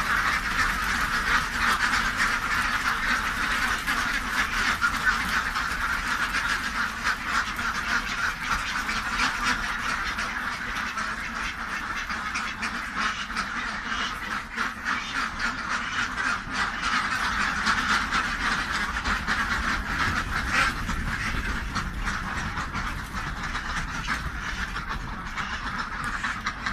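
A large flock of domestic ducks quacking all at once in a continuous din of overlapping calls, a little quieter in the second half.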